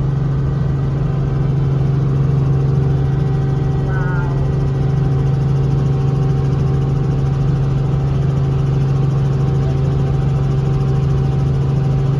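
Helicopter engine and rotors heard from inside the cabin in flight: a loud, steady drone with a strong low hum and a few steady higher tones over it.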